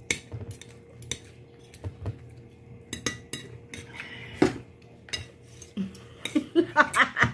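Eating rice by hand from a plate: sharp clicks and taps of the plate and fingers scraping food against it, with chewing mouth sounds. A denser run of louder clicks near the end as the plate is lifted and moved.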